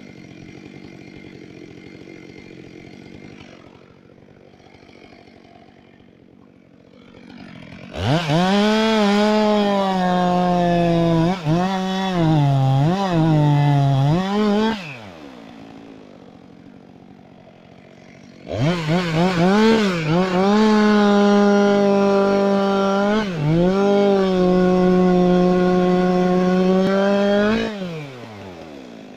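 Two-stroke chainsaw idling, then opened up to full throttle for two long runs of several seconds each, falling back to idle between and after them. In the first run the engine pitch sags and recovers several times.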